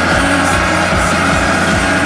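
Background music with a fast, steady electronic beat, about four beats a second.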